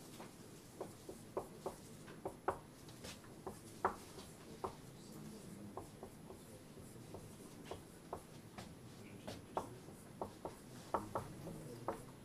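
Someone writing by hand on a board: a run of short, irregular taps and strokes.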